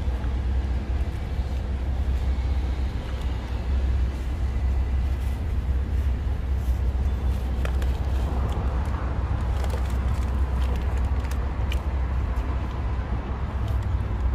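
Steady low rumble of outdoor street noise, with a few light crinkles from a paper bag and foil wrapper being handled around a shawarma wrap.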